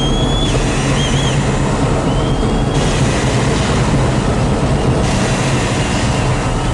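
Loud, steady mechanical rumble with a high whistle in the first second and a half, first held and then wavering, and a shorter whistle about two seconds in.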